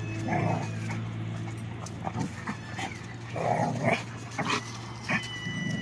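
Two puppies play-fighting: a few short growls and yips in brief bursts, with small scuffling clicks between them.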